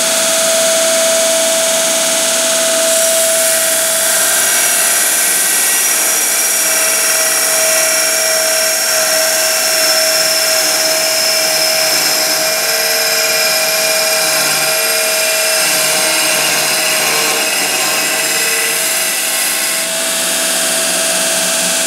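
Electric abrasive belt tube notcher running steadily, its belt grinding a notch into a steel tube, with a constant hum under a harsh high hiss. A wavering lower tone joins in the second half.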